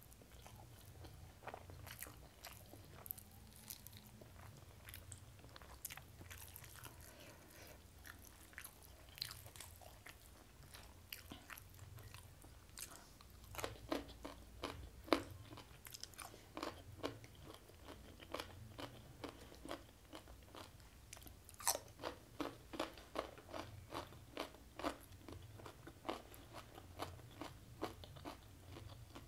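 Close-miked chewing and crunching of food in the mouth. Quick crisp crunches come in runs of a few a second, sparse at first and busier in the second half.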